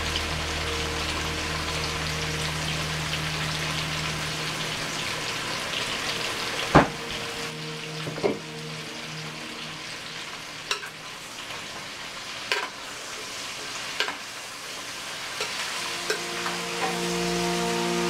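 Sliced potatoes and onions frying in a pan, a steady sizzle with a handful of sharp clicks, the loudest about seven seconds in.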